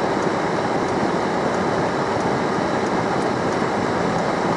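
Steady hum and rush inside a car's cabin while it sits with the engine running.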